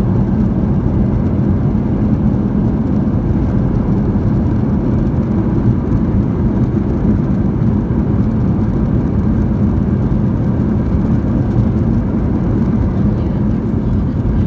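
Airbus A320 cabin noise from a seat by the wing: a steady low rumble of the engines and the rolling airliner as it moves along the ground after landing.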